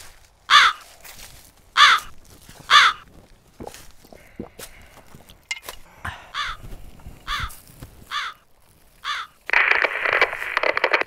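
Crow cawing: three loud, harsh caws about a second apart, then four fainter caws spaced about a second apart. Near the end comes a burst of static hiss from a handheld two-way radio.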